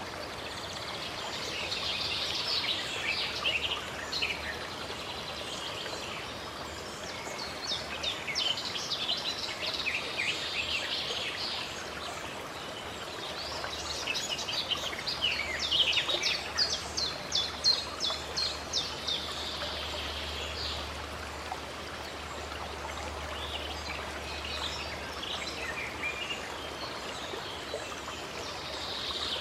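Wild birds singing over the steady rush of running water, in several bouts of chirps and quick trills, with the busiest singing about halfway through.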